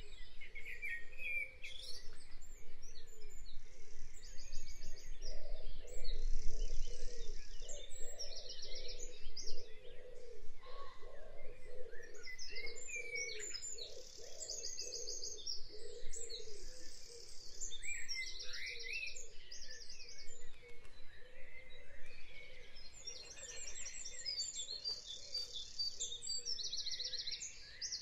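Background nature ambience of birds chirping, with repeated rapid high trills over a steady background hum.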